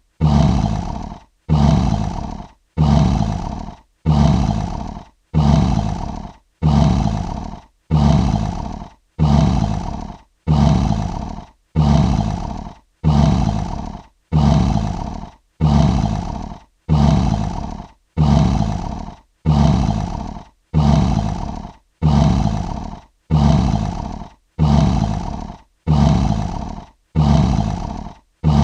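Lion roar sound effect: one short, deep roar looped over and over, about every second and a half. Each roar starts loud and fades away, with a brief gap before the next.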